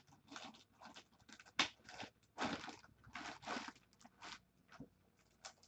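Faint, irregular crinkling and rustling: a dozen or so short scrapes and crackles, typical of hands handling cards and their plastic packaging.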